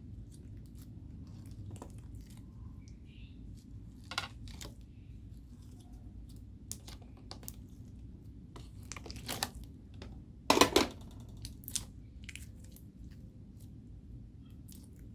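Homemade slime being kneaded and mixed by hand: scattered sticky pops and crackles, with a louder squelching burst about two-thirds of the way through.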